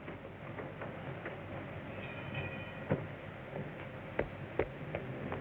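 Steady hiss from an old optical film soundtrack, with a few sharp clicks and pops scattered through the second half.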